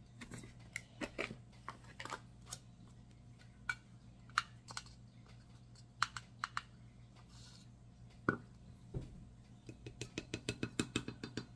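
Light clicks and taps of a plastic measuring spoon against an opened can of baking powder while a teaspoon is scooped out and levelled, with a sharper click past the middle and a quick run of small taps near the end.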